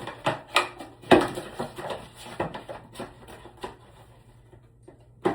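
A run of sharp plastic clicks and knocks from toilet fill-valve parts and hose being handled and fitted, the loudest about a second in, thinning out after about four seconds.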